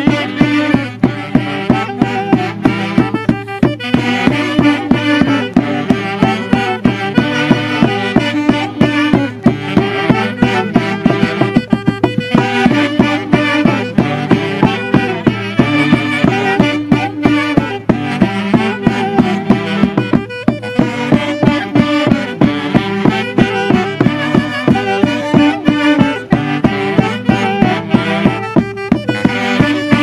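Traditional Huancavelican Santiago music from a small orquesta of saxophones and drum, the saxophones playing the melody over a steady drumbeat.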